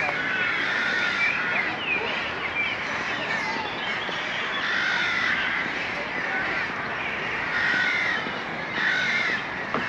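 A flock of crows cawing, many calls overlapping without a break, with louder bunches of calls near the middle and towards the end.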